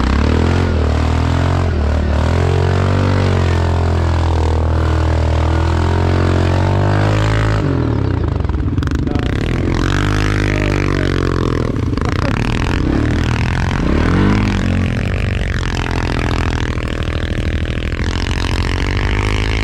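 ATV engine running under load through snow, fairly steady at first, then from about eight seconds in revving up and down repeatedly under throttle.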